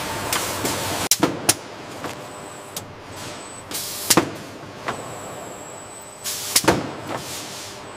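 Industrial machinery running steadily with a faint high whine at times, broken by sharp knocks and clatters at irregular moments: about a second in, at four seconds and near six and a half seconds.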